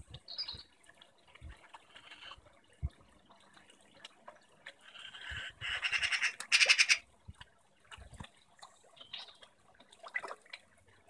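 Koi feeding at the pond surface: scattered small splashes and slurps as their mouths break the water, with a louder, rattling burst of splashing a little past halfway.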